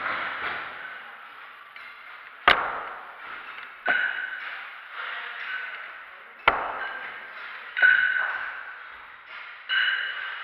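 Metal gym weights clanking: about five sharp knocks at irregular intervals of one to two seconds, the loudest about two and a half seconds in, each ringing briefly and echoing through the hall.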